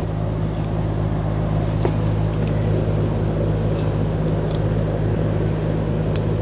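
Steady low machine hum in the background, with a few faint clicks as an electrical connector on top of a car's fuel pump module is pried and handled with a pick.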